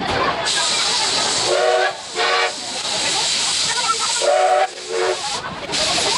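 Steam locomotive C12 66 running with a steady hiss of steam, broken twice by a pair of short, steady-pitched tones, all sped up to six times speed.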